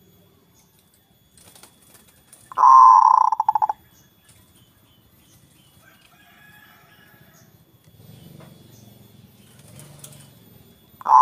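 Zebra dove (perkutut) cooing: one loud call of about a second, a coo that breaks into a fast stuttering trill, with the next call just beginning at the very end.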